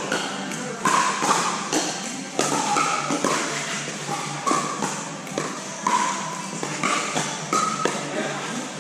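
Pickleball paddles hitting a hard plastic ball: sharp pops at irregular intervals during a rally. Short sneaker squeaks on the court surface come in between.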